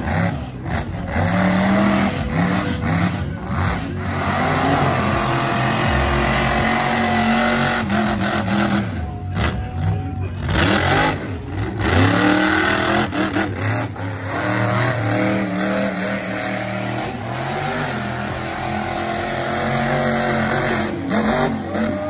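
A monster truck's engine revving up and down again and again as the truck drives and turns through mud, with the pitch climbing and falling with each burst of throttle.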